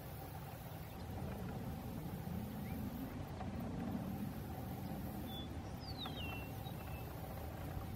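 Low rumble of distant road traffic, swelling for a few seconds in the middle as a vehicle passes. About six seconds in, a small bird gives a brief high chirp that falls in pitch.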